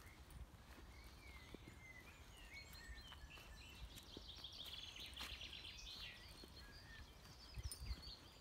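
Faint birdsong: small songbirds chirping and trilling, busiest in the middle, over a low steady rumble, with a couple of soft thumps near the end.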